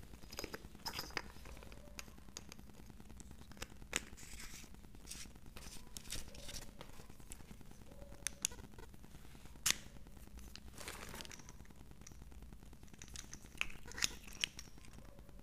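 Handling noise from two small LED flashlights being held, knocked together and switched: scattered light clicks and knocks, the sharpest about 10 seconds in, with some brief rustling of plastic packaging.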